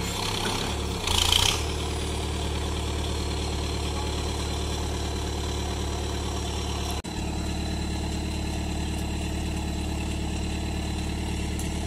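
Hitachi EX150 excavator's diesel engine running steadily, with a brief louder burst of noise about a second in.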